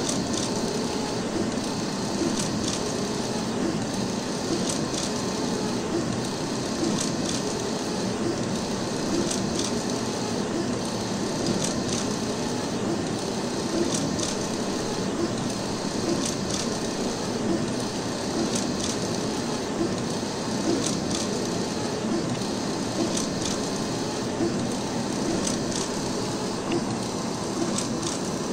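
Wide-format inkjet printer running a print: a steady mechanical whir with a short click repeating about every two seconds.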